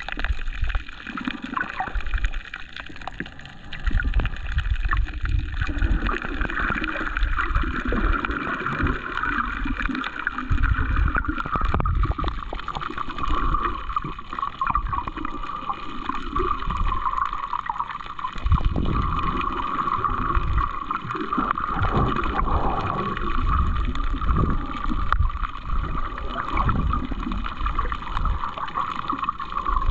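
Water sloshing and gurgling around a GoPro held underwater, with irregular low surges throughout.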